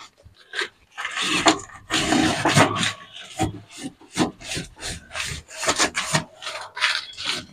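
Scrubbing against the oily mesh filter of a kitchen chimney hood: a run of rasping rub strokes, a few longer ones at first, then quicker ones about three a second.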